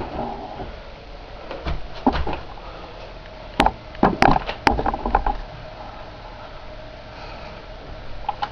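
Irregular sharp clicks and knocks in small clusters, over a faint steady hum.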